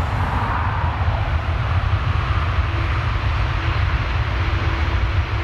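Jet engine noise from an Aer Lingus Airbus A330 airliner: a loud, steady rumble.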